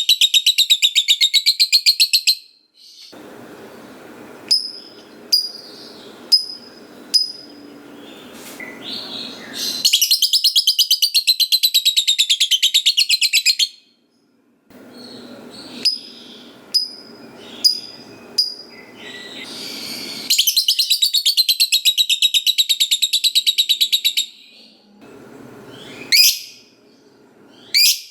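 Lovebird (Agapornis) giving its long, rapid chattering trill, the prized 'ngekek panjang', in three bouts of a few seconds each. Single short high chirps come between the bouts, and two quick rising calls come near the end.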